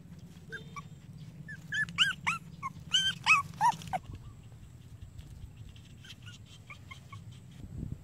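Young puppies whimpering: a quick run of short, high-pitched yelping whines between about one and a half and four seconds in, with a few fainter ones near seven seconds.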